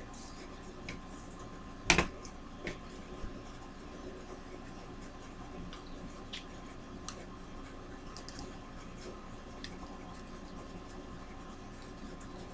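Light clicks and taps of craft materials being handled on a tabletop: a rhinestone diamond-wrap strip and a hot glue gun, with one sharper knock about two seconds in. A faint steady tone sits underneath.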